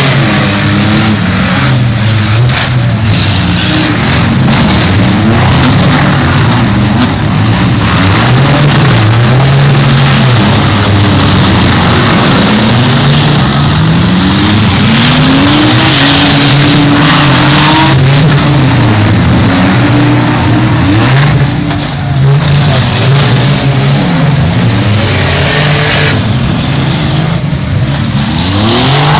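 Several demolition derby cars' engines revving hard at once, their pitches rising and falling over one another without a break.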